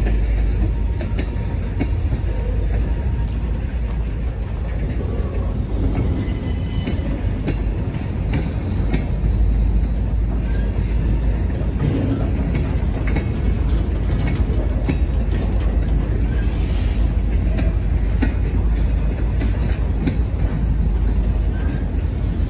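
Freight cars, a tank car and boxcars, rolling past on the track: a steady low rumble of wheels on rail with scattered clicks and clanks, and a brief high squeal about two-thirds of the way through.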